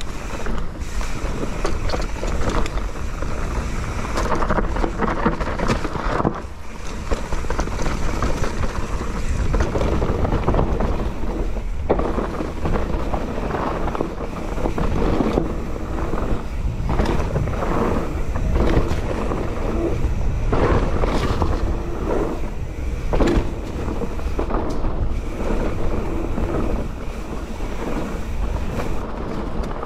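Mountain bike riding fast down a dirt singletrack: wind rushing over the microphone, tyres running on the dirt and the bike rattling and knocking over roots and bumps.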